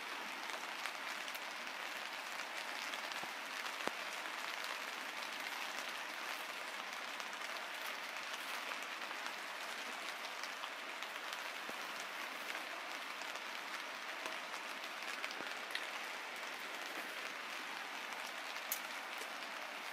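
Pouring rain falling steadily on tent fabric, heard from inside the tent, with a couple of faint clicks.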